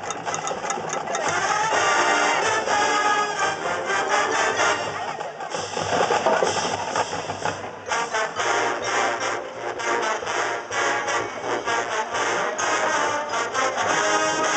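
Marching band playing a brass-led jazz arrangement with drums, the horns playing full and loud.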